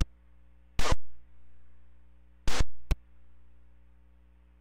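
Air-band radio receiver: two brief bursts of static, each ending in a click, as a transmission is keyed without speech and the squelch opens and closes. A steady low hum lies under them.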